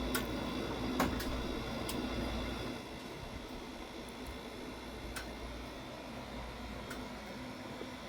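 Sharp and Fedders air conditioners running with a steady hum, broken by a few scattered sharp ticks. A low rumble underneath fades out about three seconds in.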